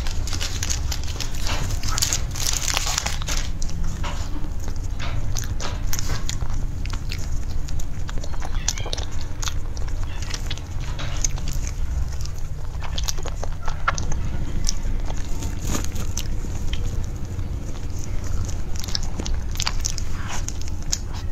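Close-miked eating: a paper cake liner crinkling as it is peeled off near the start, then biting and chewing a soft cream-filled cake with wet mouth clicks and smacks, over a steady low hum.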